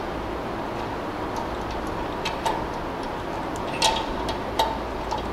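Light metallic clicks and clinks as a notched mild steel specimen is set and clamped upright in the vise of an Izod impact testing machine. There are a few scattered taps, each with a brief ring, the sharpest about four seconds in.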